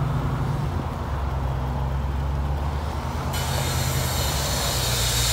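Car engine idling with a steady low rumble. A steady hiss comes in suddenly about three seconds in.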